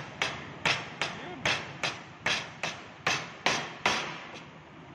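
Hammer blows on a wooden frame: about ten sharp, evenly spaced strikes at roughly two or three a second, stopping about four seconds in after one faint last tap.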